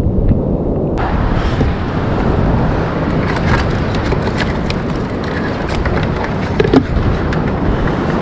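Wind buffeting the microphone over ocean surf, a steady heavy rumble, with many small scattered clicks and knocks from about a second in.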